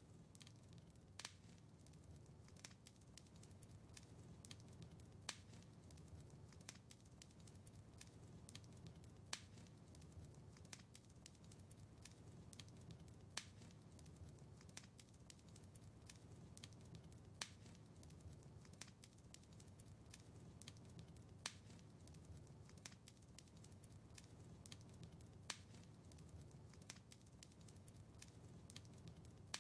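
Quiet wood fire crackling in a fireplace: frequent sharp pops and snaps over a soft low rumble of the flames. One louder pop comes back about every four seconds.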